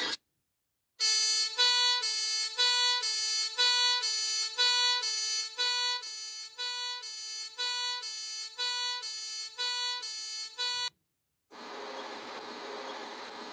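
Two-tone hi-lo siren, electronic and alternating between two pitches about twice a second, dropping in level partway through. After a short gap a steady buzzing starts near the end.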